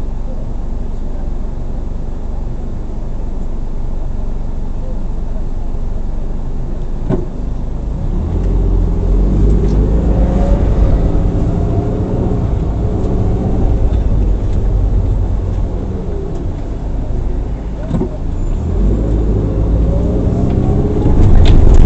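Car engine and road noise while driving. It grows louder about eight seconds in, and the engine's pitch drifts up and down.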